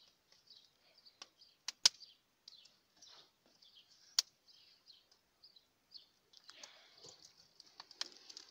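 Faint crackling of dry twigs and nut shells catching fire in a clay bread oven: a few sharp, isolated cracks, the loudest about two seconds in and another about four seconds in.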